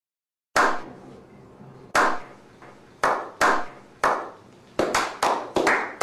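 A slow clap: hand claps begin about half a second in, at first single claps a second or more apart, each ringing out briefly, then coming faster and closer together from about five seconds in as more hands join.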